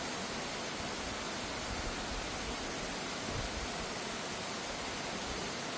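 Mountain valley stream rushing steadily: an even hiss of running water with no change in level.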